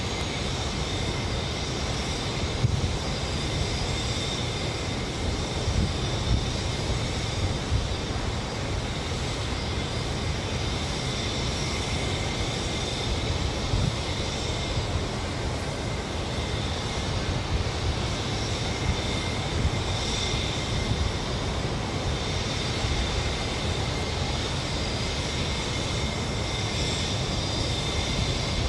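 Steady outdoor din of heavy construction machinery, such as backhoes and excavators, running at a distance, with a constant low rumble and a few small knocks.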